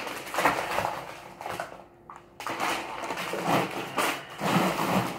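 Plastic bags of frozen vegetables crinkling and rustling as they are handled and stuffed into a freezer, in two spells with a short pause about two seconds in.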